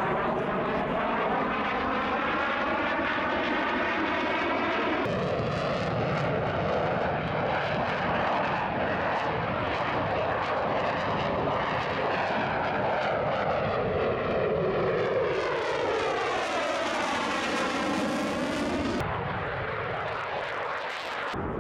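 F-16 fighter jet engine running loudly as the jet passes. The sound has a hollow sweeping tone that bends down and back up, strongest around 15 to 19 seconds in. It changes abruptly at about 5 and 19 seconds in, as if spliced from different passes.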